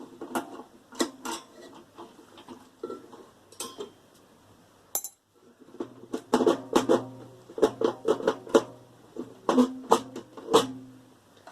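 Metal parts of a scrap microwave and a screwdriver clinking and knocking together during dismantling, in irregular clusters of sharp metallic taps with short ringing, busiest in the second half.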